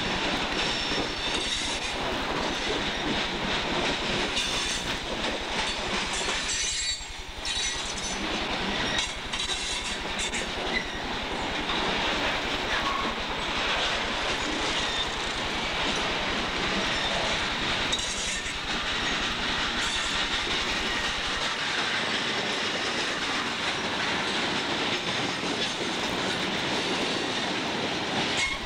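Coal hopper cars of a long freight train rolling past close by: a steady rumble and clatter of steel wheels over the rails, with clicks at the rail joints and now and then a high squeal from the wheels.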